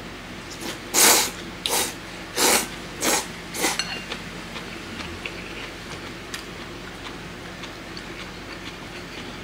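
Thick Jiro-style ramen noodles being slurped from a bowl: five loud slurps in quick succession over the first four seconds or so, then a quieter stretch with a few faint clicks of chopsticks in the bowl.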